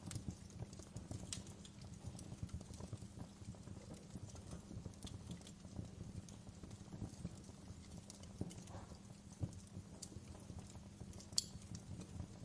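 Wood fire burning in a fireplace, crackling with irregular small pops over a low steady rumble; one sharper pop near the end.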